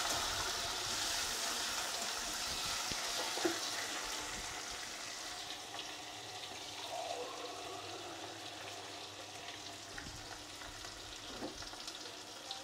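Potato and tomato pieces sizzling in hot oil in a kadai, turned with a metal spatula at the start. The sizzle slowly dies down, with a few small clicks.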